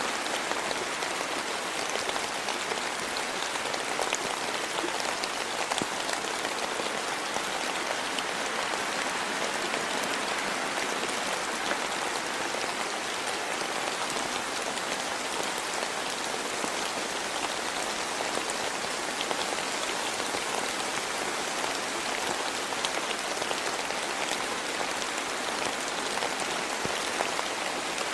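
Steady rain falling, a dense even hiss scattered with the sharp ticks of individual drops striking.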